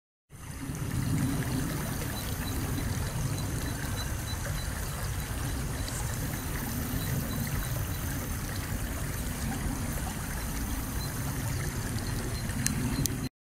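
Steady rush of a shallow river flowing, with a low rumble underneath. One sharp click comes near the end.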